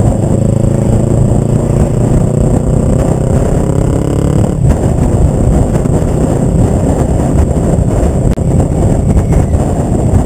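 1999 Kawasaki ER-5's parallel-twin engine through a short Delkevic Mini 8-inch slip-on exhaust while riding, the engine note climbing slowly for the first half. After a short break about halfway through, the note turns rougher and less clearly pitched, with a brief dip in sound about eight seconds in.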